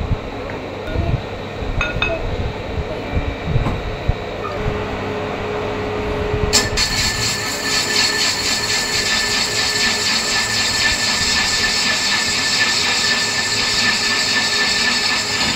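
Metal lathe turning a metal motor part, running with a few clinks. About six and a half seconds in, a loud high-pitched metal-cutting screech sets in suddenly and holds steady as the cutting tool bites into the workpiece.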